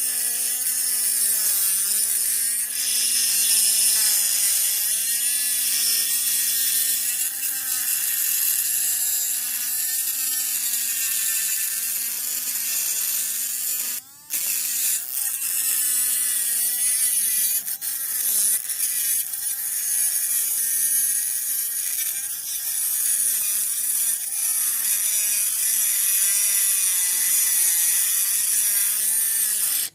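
Small 3-volt DC motor of a homemade mini grinder running with a steady whine whose pitch wavers up and down as the load changes, over a high grinding hiss. It cuts out briefly about halfway through and stops near the end.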